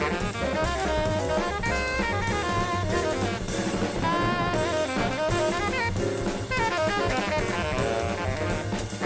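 Jazz music: a drum kit keeps the beat under a busy melody line.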